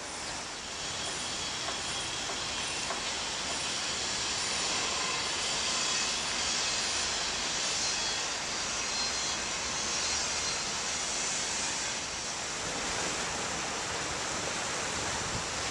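Steady hiss of rain falling, with no breaks or distinct events.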